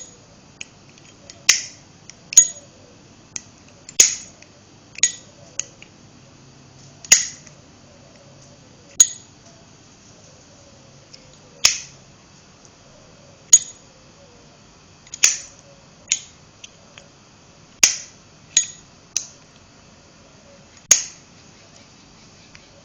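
Black Matte Slim Zippo lighter's lid being flipped open and snapped shut again and again, making a series of sharp metallic clicks every second or two.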